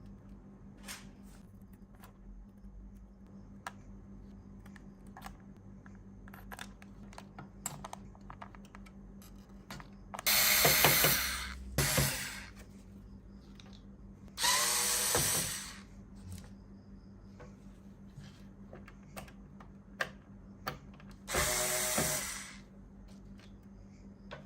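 A small handheld power tool run in four short bursts of a second or so each, its pitch climbing as the motor spins up. Light clicks and taps of handling fall in between.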